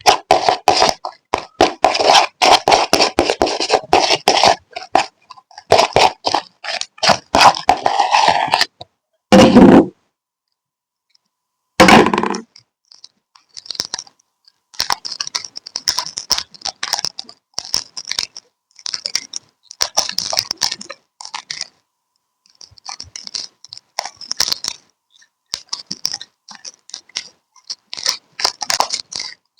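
Glitter slime being squished and stretched by hand: rapid wet crackling and popping clicks. A couple of louder squelches come around the middle, and the later crackles are thinner and sparser.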